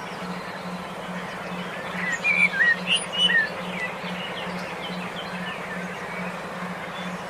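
Several small songbirds chirping, with a cluster of quick rising and falling calls about two seconds in, over a steady hiss and a low hum that pulses about three times a second.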